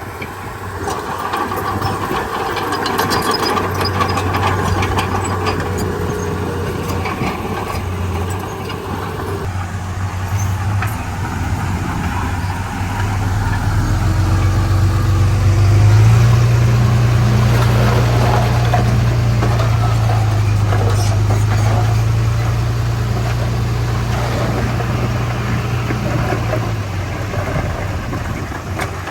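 Heavy diesel machinery at work: a low diesel engine running, revving up and louder about halfway through, holding, then easing back near the end, with scattered metallic clanks.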